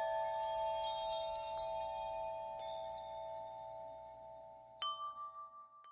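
Outro music of chime-like bell tones: a held ringing chord with high tinkling notes above it, slowly fading, then one last chime strike about five seconds in that rings out and dies away.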